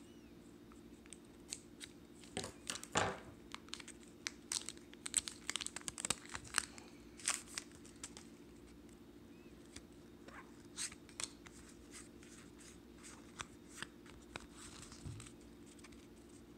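Scissors snipping the foil wrapper of a trading-card booster pack, with the foil crinkling: a run of short sharp snips and crackles, busiest in the first half and sparser after about ten seconds in.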